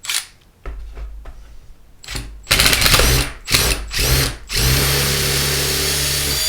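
Power drill with a larger bit drilling out the head of a tamper-proof screw: a few short bursts starting about two and a half seconds in, then a steady run of about two seconds.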